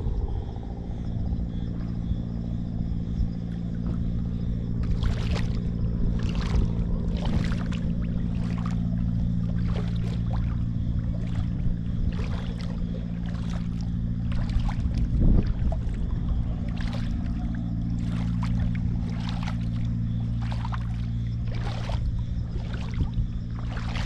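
Shallow sea water lapping and splashing in short irregular bursts close to the microphone, over a steady low hum.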